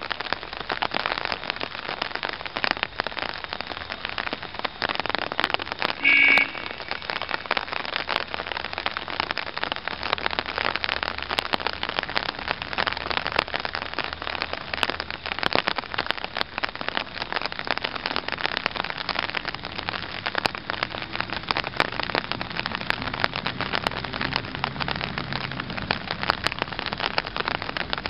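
Rain falls close to the microphone: a steady patter full of sharp drop clicks. About six seconds in there is a brief high tone. In the second half a low diesel engine hum grows as the railbus pulls forward.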